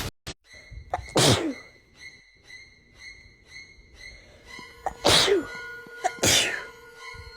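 A person sneezing three times: once about a second in, then twice in quick succession near the end.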